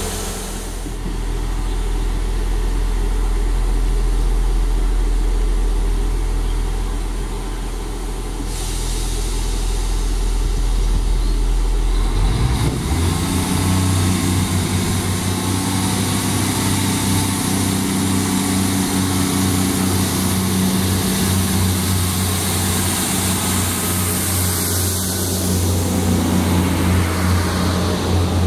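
Class 158 diesel multiple unit's underfloor diesel engines idling at a platform. About twelve seconds in, a louder, stronger engine note takes over as the train pulls away under power and passes close by.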